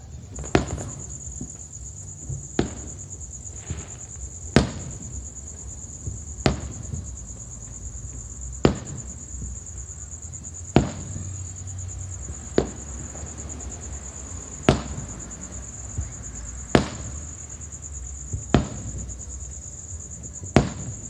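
Distant aerial firework shells bursting with sharp bangs about every two seconds, with a few smaller pops in between, over a steady high trill of crickets chirping.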